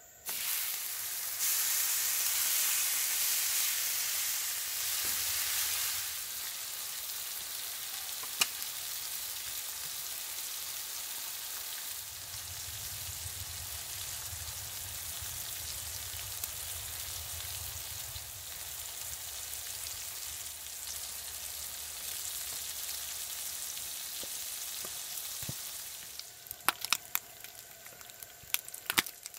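Bacon strips sizzling on a cast-iron griddle over a Coleman 425E camp stove. The sizzle starts suddenly as the bacon hits the hot iron, is loudest for the first few seconds, then settles to a steady frying hiss. Near the end it thins to scattered pops and crackles.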